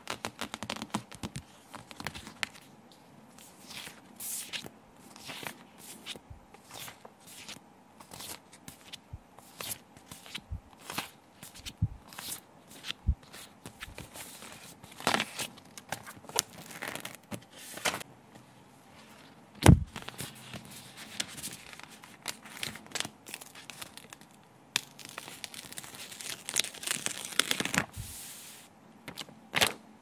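Paper stickers and sheets handled close up: stickers peeling off their backing with a tearing crackle, paper rustling, and light taps and clicks. A single sharp knock comes about two-thirds of the way through, and a longer stretch of rustling follows near the end.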